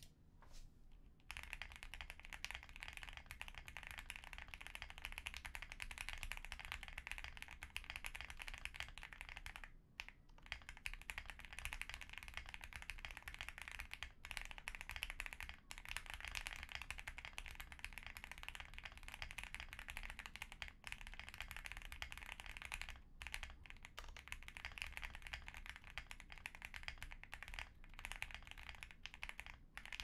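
Continuous typing on a Meletrix Zoom65 Essential Edition mechanical keyboard with lubed Gateron Oil King linear switches and PBT keycaps. The typing starts about a second in and stops briefly a few times.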